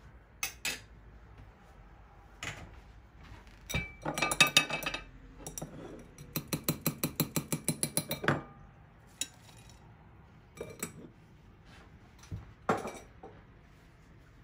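A stainless mesh strainer clinking and rattling against a ceramic plate as fried garlic is knocked out of it, with a fast run of about a dozen taps near the middle, around five a second, and scattered single clinks before and after.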